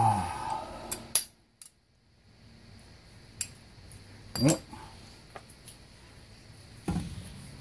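A few scattered light metallic clinks and taps of hand tools being handled, with the tail of a sigh at the start and a short grunt about four and a half seconds in.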